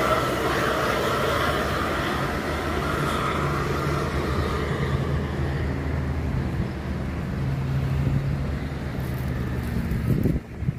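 Road traffic: a heavy vehicle's engine running steadily under a wash of tyre and road noise that fades over the first few seconds. The sound drops off sharply near the end.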